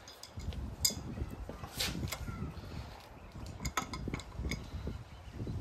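Adjustable wrench clinking against a rusty nut and the steel of an old metal shear as it is fitted onto the bolt: scattered light metallic clicks, a few of them close together a little under four seconds in.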